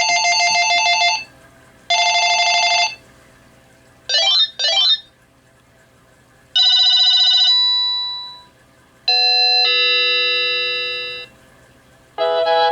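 A Panasonic KX-TG1033S cordless phone handset plays short previews of its ringtones one after another. First comes a fast-trilling electronic ring, twice, then two quick chirps that glide up and down. Two chime-like tones follow, each fading away, and a multi-note ringtone tune starts near the end.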